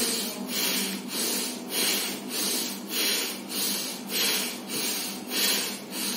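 A man doing Bhastrika (bellows breath) pranayama: rapid, forceful breaths in and out, an even rhythm of short rushes of air about twice a second.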